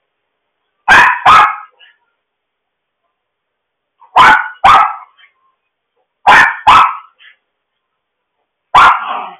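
A dog barking sharply and loudly in quick pairs: two barks, a pause of about three seconds, two more, another pair, then a single bark near the end. Heard through a home security camera's microphone.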